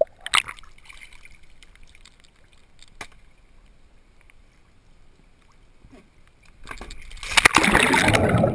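Pool water lapping quietly with a few faint clicks, then about seven seconds in a loud rush of splashing and churning water as someone plunges into the pool.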